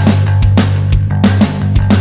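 Instrumental background music with a steady drum beat.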